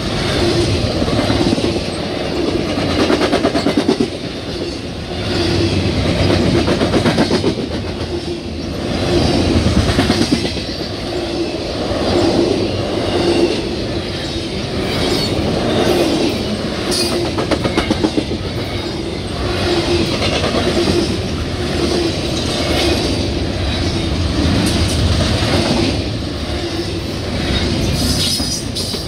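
CSX double-stack intermodal container train rolling past close by: steady wheel rumble and clickety-clack of the well cars' wheels over the rail, with a steady hum under it. The sound swells and eases every few seconds as the cars go by.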